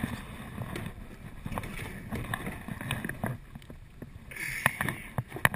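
Paddling and handling inflatable kayaks on still water: irregular knocks, bumps and small splashes of paddles and hulls. A few sharper clicks about four and a half to five and a half seconds in.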